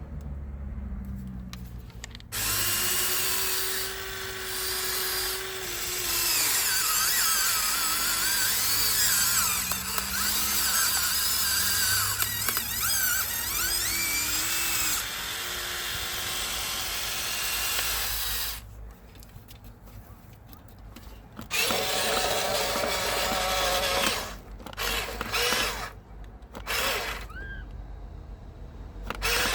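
Electric gear motors of a Huina 1593 RC excavator whining as it works, the pitch bending up and down as the motors change speed. One long run is followed by a short pause, then shorter runs that start and stop near the end.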